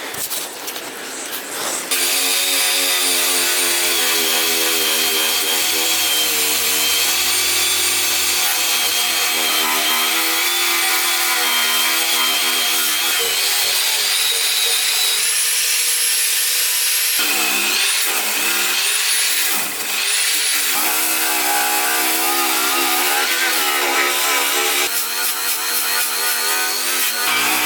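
A handheld rotary power tool starts running about two seconds in and grinds steadily on metal, typical of stripping paint and rust from a classic Mini's underbody. Between about two-thirds and three-quarters of the way through, its pitch dips and recovers several times as it is pressed under load.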